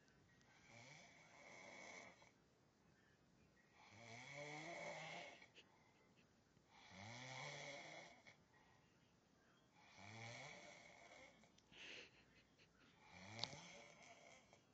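A sleeping man snoring: five snores, about three seconds apart, each a low rasping breath with a pitched buzz. A brief sharp click comes during the last snore.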